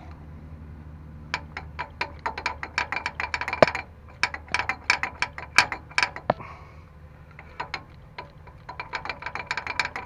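Rapid clicking in two long bursts, several clicks a second, from a hand-held vacuum pump with gauge being worked on a vacuum-actuated front locking hub's line while the hub is tested for a vacuum leak.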